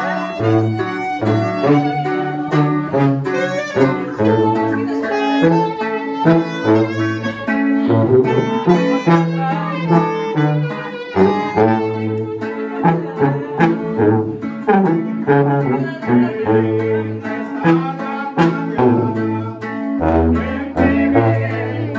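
Live band playing: a saxophone carries the melody over a strummed guitar and a sousaphone bass stepping between low notes.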